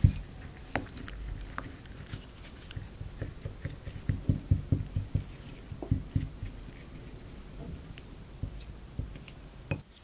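Spoon stirring a thick gochujang and soy sauce mixture in a small ceramic bowl. Wet squishing, with irregular light clicks and soft knocks of the spoon against the bowl, busiest in the middle.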